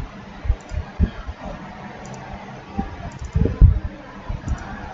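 Faint computer-mouse clicks, some in quick pairs, over low room noise, with scattered low thumps, the loudest about three and a half seconds in.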